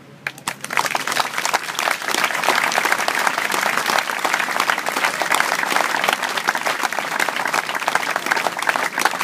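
Audience applauding: a few claps at first, swelling within about a second into steady applause from a large crowd.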